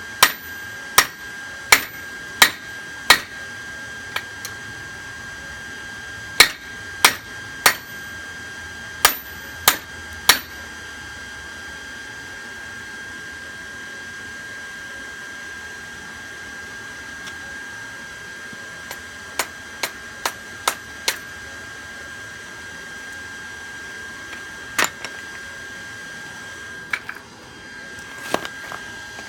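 Hammer blows ringing on a steel railroad-track anvil, in runs of three to five strikes about two-thirds of a second apart, then a long pause, then a quick series of lighter taps and a few last blows near the end. A steady high tone sits underneath throughout.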